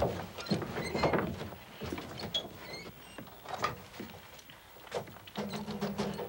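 Mechanical clattering: a string of irregular clicks and knocks, with a short low drone near the end.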